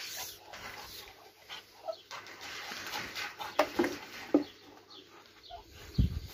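Domestic poultry clucking and calling in short, scattered calls, with a low thud near the end.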